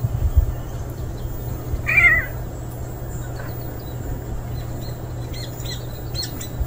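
A cat meows once, a short call about two seconds in, over a steady low rumble; a few faint short clicks follow near the end.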